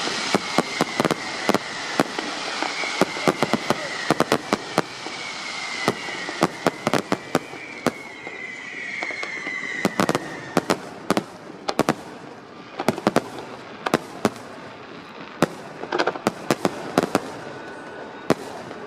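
Aerial fireworks bursting in rapid, irregular volleys of sharp bangs and crackles. A high whistle slowly drops in pitch through the first half and fades out about halfway through.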